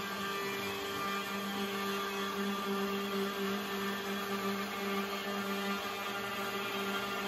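Makita RT0700C trim router running as the spindle of a Shapeoko 4 XL CNC, a steady whine with a constant pitch.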